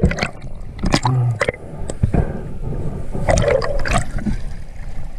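River water gurgling and sloshing around a camera that is underwater or breaking the surface, with scattered knocks and bumps.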